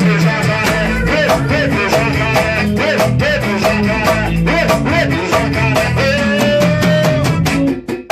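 Band playing an instrumental passage with guitar, bass and a steady beat, in rehearsal. Near the end the full sound drops out into short, separate hits.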